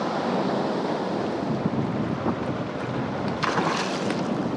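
Wind buffeting the microphone over the wash of sea water around a small boat, a steady rushing noise, with a brief louder rush about three and a half seconds in.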